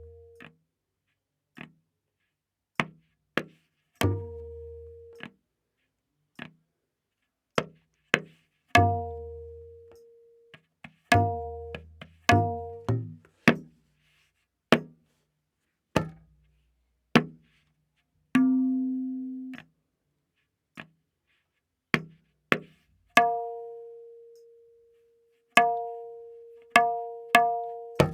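Tabla playing a slow vilambit ektaal theka: sparse single strokes with gaps between them, the dayan tuned to A# ringing on its open strokes, some strokes joined by a deep ringing bass from the bayan.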